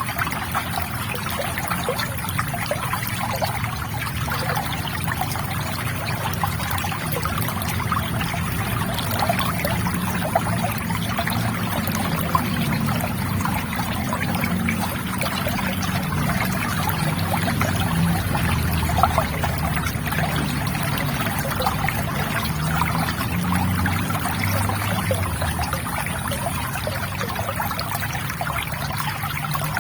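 River water trickling and gurgling in a steady, continuous flow, with many small splashes.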